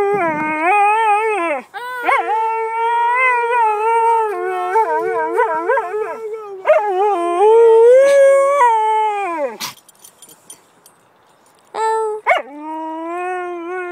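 Husky howling ("singing") in long, wavering, warbling notes, one long stretch ending with a falling note just under ten seconds in. After a brief pause, a few shorter howls come near the end.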